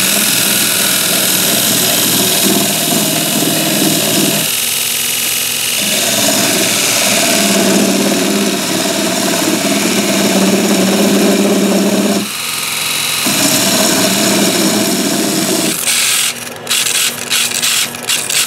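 Wood lathe running while a parting tool cuts a groove into the spinning wood in three long passes with short pauses between them. Near the end the cutting stops and there are a few short, irregular scrapes.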